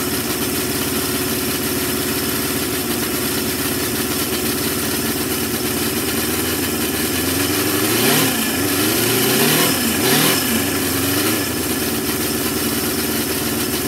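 Miniature Cison V8 model engine running and driving a model six-speed transmission in third gear, with the wheels spinning off the ground. The revs rise and fall a few times about halfway through.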